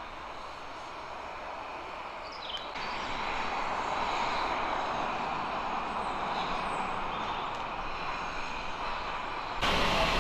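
Steady rushing drone of a train or engine running nearby, stepping up in loudness about three seconds in, with a few faint chirps over it.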